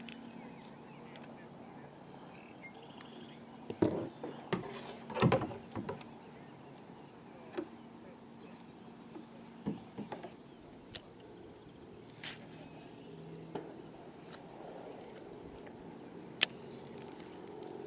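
Scattered knocks and clicks of fishing gear and paddles being handled in a plastic kayak, loudest in a cluster about four to five seconds in and one sharp click near the end, over a faint low steady hum.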